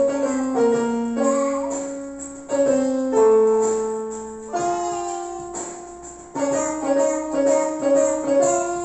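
Yamaha portable electronic keyboard played with a piano voice: a slow melody of held notes, each phrase struck and then fading away.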